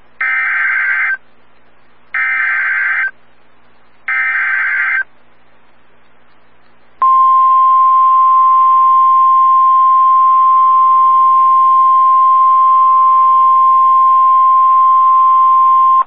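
NOAA Weather Radio Emergency Alert System signal: three short bursts of SAME digital header data about a second apart, then a loud, steady 1050 Hz warning alarm tone starting about seven seconds in and held for about nine seconds. It announces a new severe thunderstorm warning.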